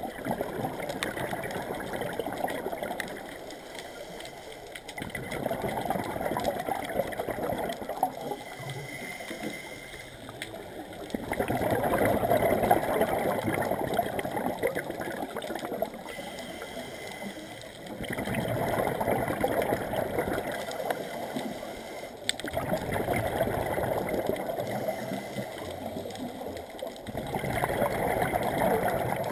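Scuba diver breathing through a regulator underwater: exhaled bubbles gurgle out in bursts of two to five seconds, about every five or six seconds, with quieter gaps between.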